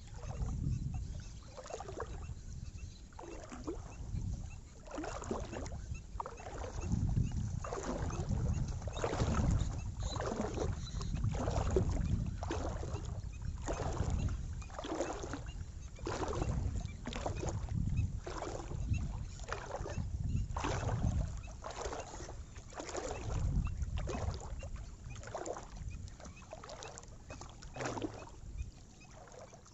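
Water sloshing with wading steps through knee-deep shallows, a splash about once a second over a low rumble.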